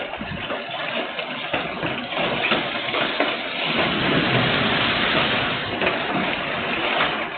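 Heavy rain and wind picked up by a CCTV camera's microphone, a steady rush that swells to its loudest midway and eases slightly near the end.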